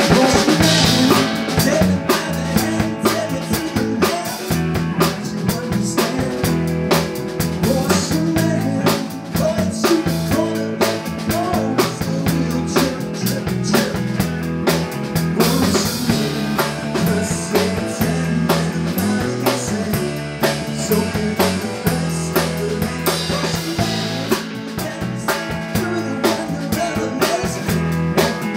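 Rock band playing live: a drum kit keeping a steady beat under electric bass and electric guitar.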